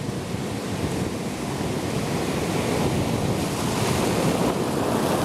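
Ocean surf breaking and washing up the beach at high tide, a steady rush of water that swells louder about three seconds in, with wind buffeting the microphone.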